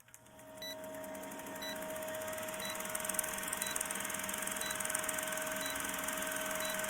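A steady electronic hum with a short, high beep repeating about once a second.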